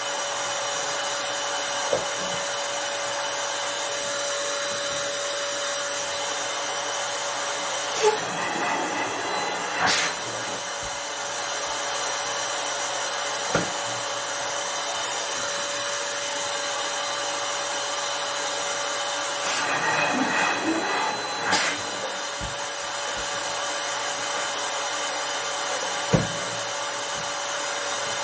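Electric balloon inflator running steadily as latex balloons are filled one after another, with a few short clicks and rubbing as the balloons are handled.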